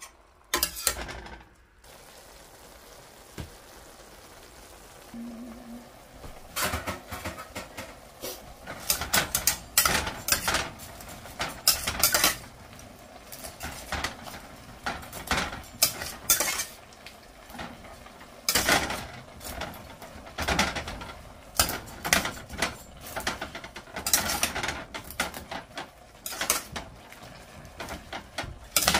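Metal fork and spatula scraping and clinking against a stainless steel sauté pan as stir-fried pancit canton noodles, vegetables and meat are tossed. The strokes come in irregular clusters, a few at first and then busier from several seconds in.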